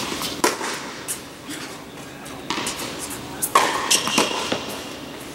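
Tennis rally on an indoor hard court: sharp racquet strikes and ball bounces, each echoing in the large hall, with a cluster of hits and bounces over a second or so past the middle.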